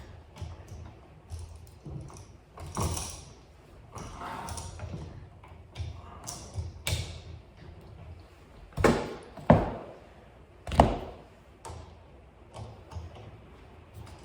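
Handling noises from hands-on electrical work: scattered clicks, knocks and short scrapes, with three louder knocks about nine to eleven seconds in.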